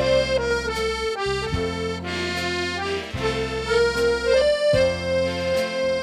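Red piano accordion playing a slow melody of long held notes on the right-hand keyboard, over bass chords from the left-hand buttons that change about every one and a half seconds.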